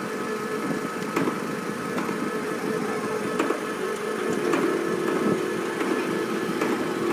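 Mobile crane's diesel engine running steadily under a lift, with a steady whine and a few sharp clicks.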